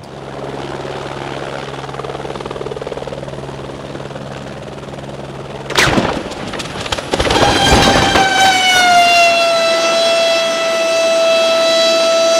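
Helicopter hovering with a steady rotor and engine drone; about six seconds in it crashes with a sudden loud smash, followed by a couple of seconds of crunching and thrashing. A loud continuous whine with several overtones then takes over, dipping slightly in pitch before holding steady.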